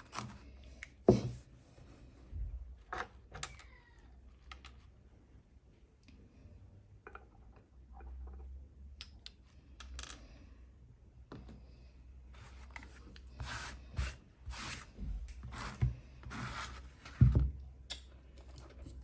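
Hands handling and arranging objects: scattered clicks, knocks and rustling, with a sharp knock about a second in and another near the end.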